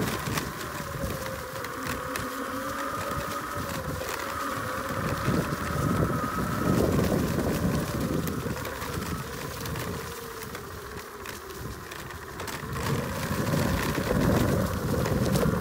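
Bajaboard GX4 electric off-road skateboard's motors whining as it rolls, the pitch wandering with speed, over the rough rumble of its tyres on a leaf-covered dirt trail.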